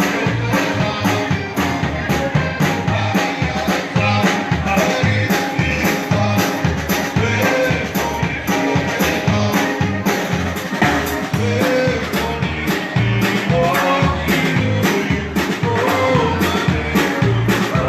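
A Texas Czech dance band playing live, with a drum kit keeping a steady beat under the melody instruments.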